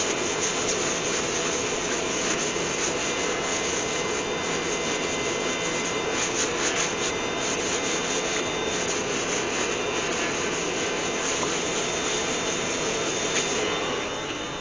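Hand-held abrasive sanding the inside of a spalted beech bowl as it spins on a wood lathe: a steady rushing rasp of abrasive on wood over the lathe's running.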